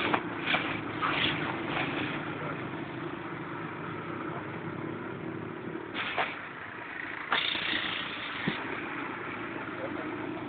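Auto-rickshaw engine running steadily as it drives along a road, heard from inside the open cabin, with a few louder rushes of noise near the start and about six and seven seconds in.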